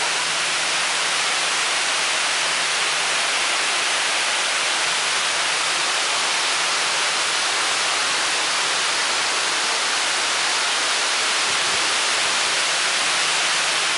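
Water cascading down the face of Houston's Water Wall fountain: a steady, even rush of falling water.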